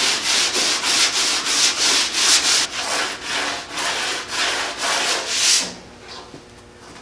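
Hand sanding the paint on a metal car fender with coarse 100-grit 3M wet-or-dry sandpaper on a sanding block: quick back-and-forth rasping strokes, about three a second. The strokes stop about five and a half seconds in.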